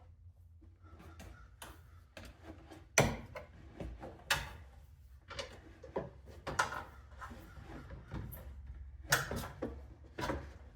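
Irregular knocks, clunks and clatter of objects and hardware being handled during electrical wiring work. The loudest sharp knocks come about three seconds in and again near the end.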